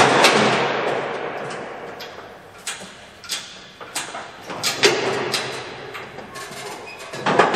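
A series of sharp knocks and clanks from sections of sheet-metal stovepipe being handled and fitted. The loudest hits, one at the start and one about five seconds in, ring on for a second or two.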